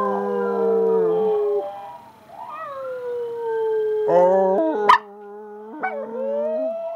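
Chihuahua howling in long drawn-out notes that slide slowly up and down in pitch, joined at times by a lower, steadier human howl. A sharp click about five seconds in.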